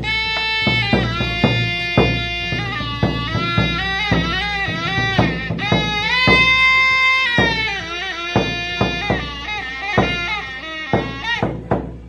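Traditional Q'eqchi' drum-and-flute music: a small flute plays a melody with long held notes over steady strokes of a large double-headed drum. The playing stops near the end.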